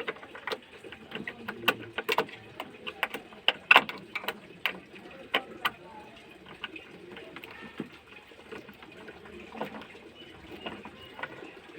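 Irregular sharp clicks and knocks of things being handled, many in the first six seconds, then fewer and fainter.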